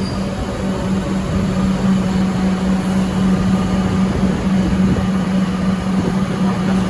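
Alstom Comeng electric train in an underground station, a steady low hum over a dense rumbling noise.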